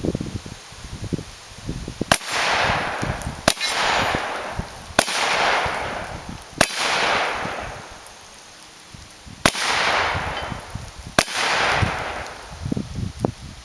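Six shots from a TriStar Viper G2 Sport 12-gauge semi-automatic shotgun: four about a second and a half apart, a short pause, then two more. Each sharp report trails off over about a second.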